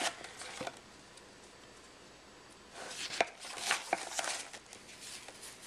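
Paper rustling and soft taps as a page of a large picture book is handled and turned, mostly in a burst from about three to four and a half seconds in, with a couple of clicks at the very start.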